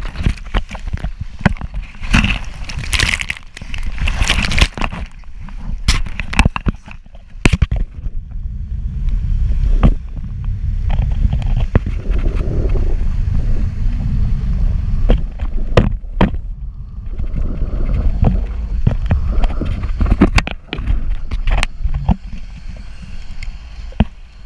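Sea water splashing and churning over a parasailer dragged through the water behind a tow boat, heard as rapid crackling splashes. After about eight seconds it gives way to a steady low wind rumble on the action camera's microphone with occasional knocks, as the rider is lifted clear of the water.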